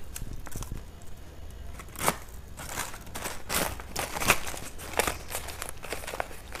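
Small plastic earring packet crinkling and rustling as it is handled, an irregular string of short crackles starting about two seconds in.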